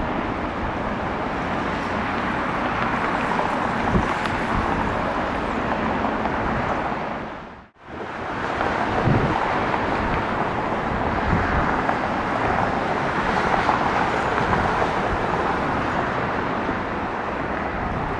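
Antonov An-124's four Progress D-18T turbofan engines running at taxi power, a steady rushing jet noise, with wind buffeting the microphone. The sound fades out briefly about eight seconds in at an edit, then comes back at the same level.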